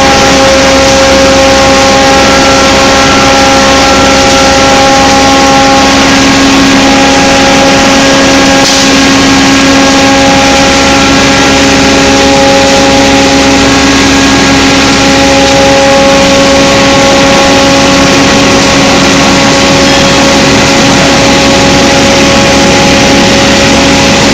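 Tianyuan TYFS40 wood sawdust machine running: a loud, steady mechanical noise with a constant hum of several steady tones.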